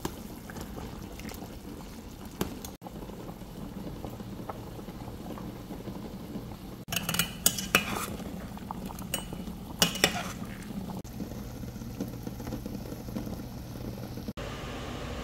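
Water boiling hard in stovetop pots. Around the middle, metal tongs clink several times against the pot while stirring.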